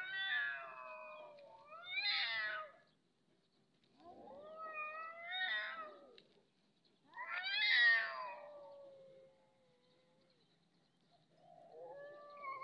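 Two domestic cats in a standoff, yowling with long, drawn-out, wavering calls: the threatening caterwaul of cats about to fight. About five calls, with short silent gaps between them.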